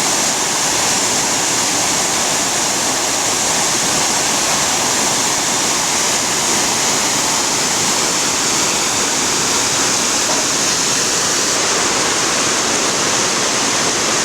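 Steady, loud rush of a waterfall, an unbroken wash of falling water with no pauses or changes.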